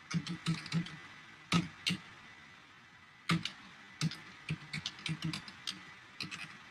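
Typing on a computer keyboard: key clicks in short irregular runs with pauses between, as a package name is typed.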